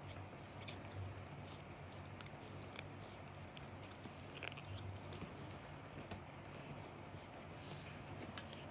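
A pet animal chewing food, with faint, scattered crunches and clicks from its jaw.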